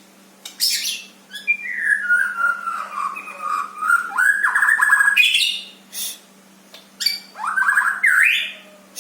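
A bird calling loudly: a long whistled note that slides down and back up in pitch, with shorter harsh squawk-like notes, and another rising call near the end.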